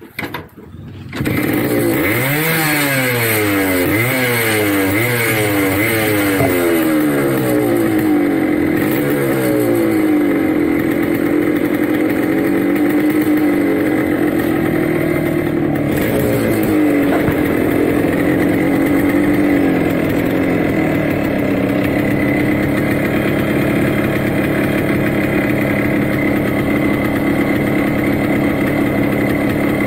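Suzuki Samurai's two-stroke single-cylinder engine starting about a second in, revved up and down about once a second for several seconds, then settling into steady running with a couple of small blips. It is running on petrol with Nulon engine-treatment oil freshly mixed in, being run so the treatment reaches the bore and piston.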